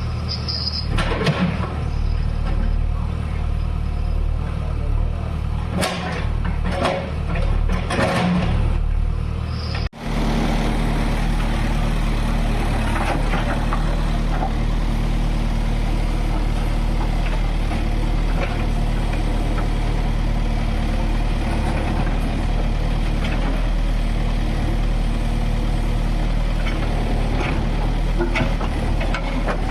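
Diesel engine of a JCB 3DX backhoe loader running steadily, with scattered knocks and clanks in roughly the first ten seconds. The sound drops out sharply about ten seconds in, then the engine runs on evenly.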